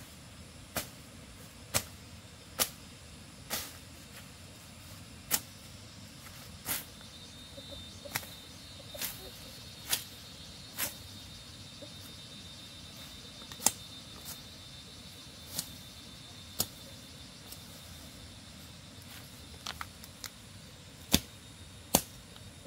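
A series of sharp knocks, about twenty at irregular intervals of roughly one a second, over a steady low hiss. A faint high steady tone runs through the middle.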